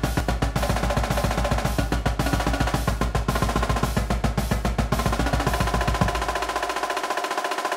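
Marching drumline cadence: snare and tenor drums play fast, even sixteenth-note patterns over bass drums. About six seconds in the bass drums land one accented hit and drop out, leaving the snares and tenors playing on their own.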